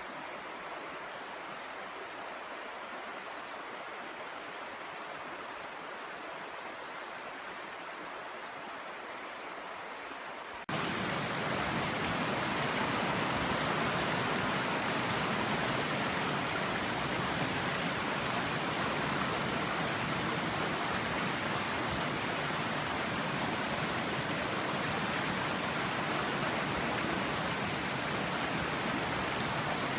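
Flowing stream water, a steady rushing hiss, with faint high chirps over it; about ten seconds in it cuts abruptly to louder, fuller rushing water.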